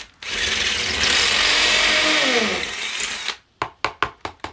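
Ryobi cordless drill driver fitted with an 8 mm masonry bit, boring into brick for about three seconds, its motor note falling as it slows and stops. A quick run of sharp taps follows near the end.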